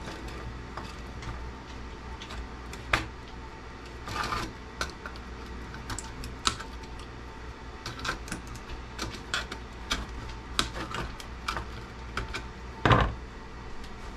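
Diagonal cutters snipping wires off a CB radio's circuit board: a run of short, sharp, irregular clicks, with a louder knock near the end.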